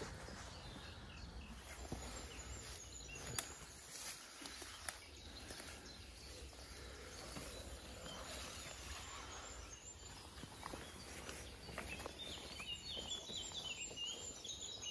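Quiet woodland ambience with birds chirping, the chirps growing more frequent near the end, and a few faint snaps and rustles of footsteps through undergrowth.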